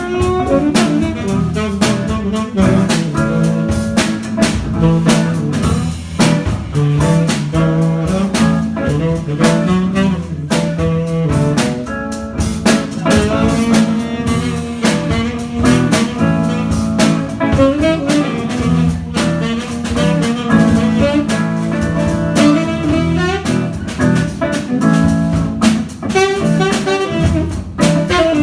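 Live jazz improvisation: a saxophone playing a free melodic line over guitar, with a drum kit keeping up frequent hits.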